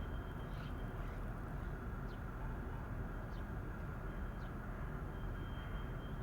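Outdoor ambience: a steady low rumble with faint, short falling bird chirps every second or so.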